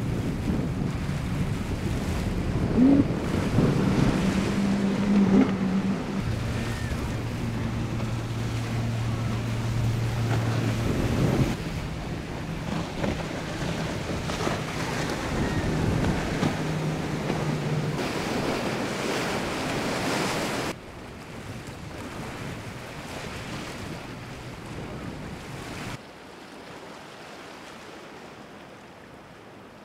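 Powerboat engines running at speed with spray and waves over choppy water, and wind on the microphone; the engine hum and water noise drop away about 21 seconds in, leaving a quieter wash of water near the end.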